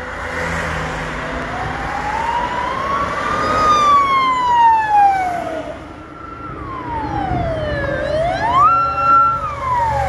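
Emergency-vehicle siren wailing as a fire-engine convoy passes: a slow rise and fall in pitch, then near the end a quick climb to a held high note that falls away again. Heavy vehicle engines rumble underneath.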